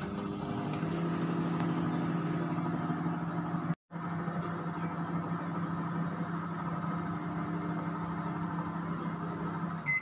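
Countertop microwave oven running, a steady electrical hum with a brief break about four seconds in.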